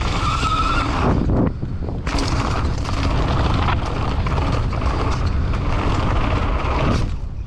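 Wind buffeting the microphone and tyres of a downhill mountain bike rolling fast over a loose gravel trail, with frequent knocks from the bike. A brief high whine about half a second in.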